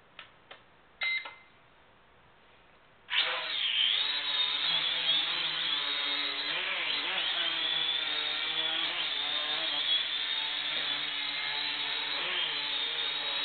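A few faint clicks and a short sharp burst, then about three seconds in the four propeller motors of a Sharper Image DX-4 toy quadcopter spin up suddenly into a steady high whine, its pitch wavering as the throttle changes. The motors starting after it would not turn on.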